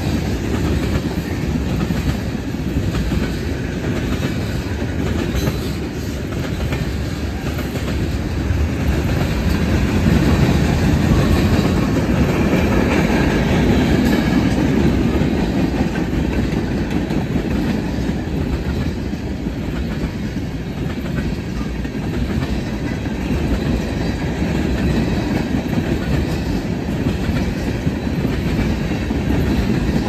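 Freight train of loaded tank cars rolling past: a steady rumble and clatter of steel wheels on the rails, growing a little louder about a third of the way through.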